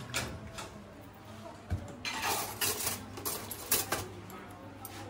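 Scattered clinks and knocks of bowls and utensils as a bakso vendor dishes up a serving, with a louder clatter about two seconds in.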